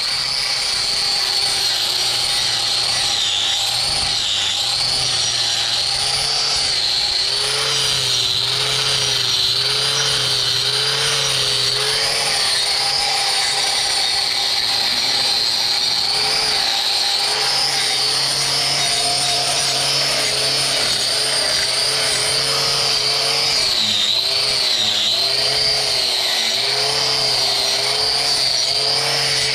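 A handheld electric power tool running continuously while it works a cow's hoof during trimming. Its whine wavers up and down in pitch as the load on it changes.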